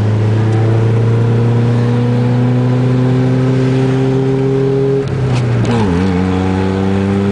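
1990 Honda Accord's four-cylinder engine pulling under acceleration, heard from inside the cabin, its pitch rising slowly. About five seconds in the note dips briefly at a gear change, then climbs again.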